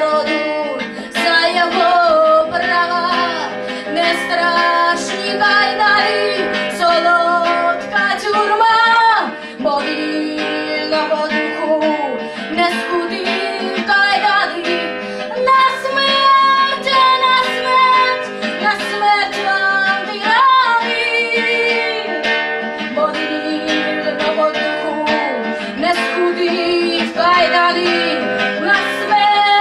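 A woman singing a Ukrainian song live, accompanying herself on acoustic guitar with strummed chords.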